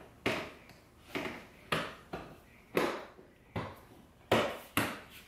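Plastic interior trim panel being pushed into place by hand, its retaining clips snapping in with about seven sharp knocks at uneven intervals as the panel is seated from back to front.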